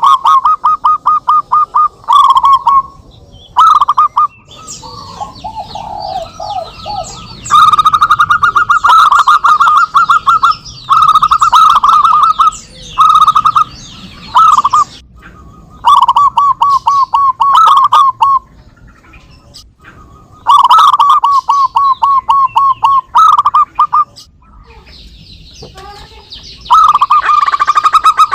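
Zebra doves (perkutut) cooing and answering one another: repeated runs of fast, pulsed coo notes at a steady pitch, separated by short pauses. Higher-pitched chirping runs over the cooing in the middle of the stretch and again near the end.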